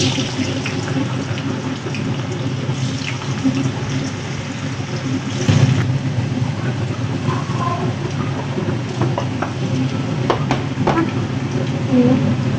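Beaten egg with shallots sizzling steadily in a hot non-stick frying pan, with a couple of light clicks near the end.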